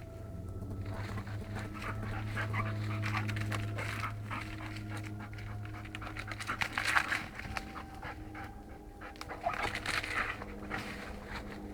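A retriever dog panting in quick, repeated breaths, loudest around the middle, over a steady low hum.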